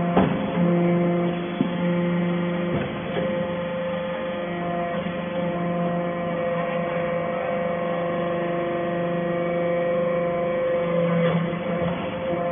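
Hydraulic power unit of a vertical aluminium scrap baler running with a steady hum and whine, with a few short knocks and shifts in the drone as the press works.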